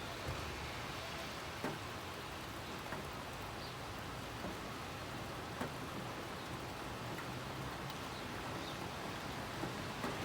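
Steady rain falling on a city street, a continuous hiss with scattered louder drops tapping a surface now and then.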